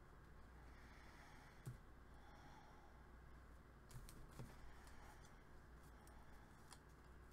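Near silence: quiet room tone with a few faint clicks and taps as a cardstock tag and paper flowers are handled on a craft mat.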